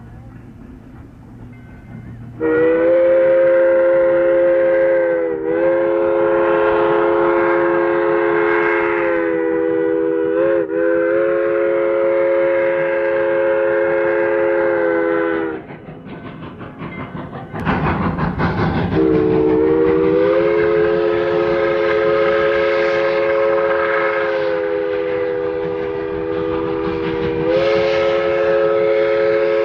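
Train horn sounding a chord of several notes in two long blasts. The first blast holds for about thirteen seconds and dips in pitch twice. After a short burst of noise, the second starts about nineteen seconds in.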